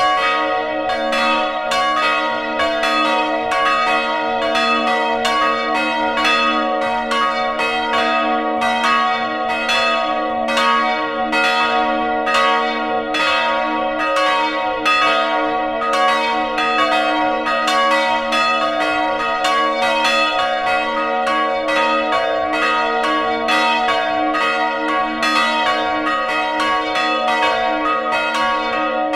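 Full peal of several church bells swinging in a wooden bell frame, heard close up in the belfry: overlapping strokes at a steady pace, each ringing on over the next.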